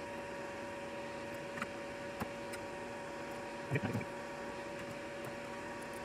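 Quiet bench work of desoldering a circuit board: a few light clicks and a short soft bump about four seconds in as the board is handled, over a steady hiss and faint hum.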